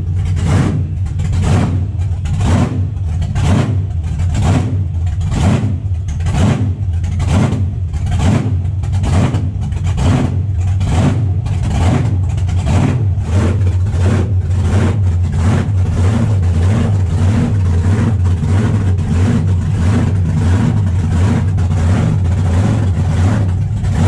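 Warbird's supercharged 1,700 hp burnout-car engine idling loud and lumpy while it warms up, with a steady rhythmic lope of about three surges every two seconds.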